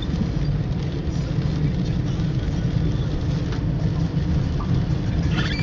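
Steady low rumble of a moving car heard from inside its cabin: engine and tyre noise.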